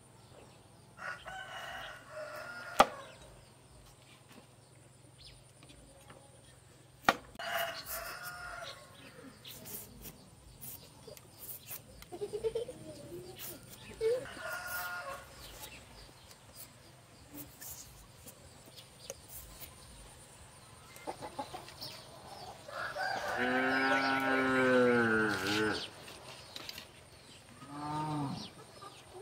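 A rooster crowing: one long, drawn-out crow about three quarters of the way in, and a shorter call near the end, with scattered chicken calls earlier. Two sharp clicks in the first half.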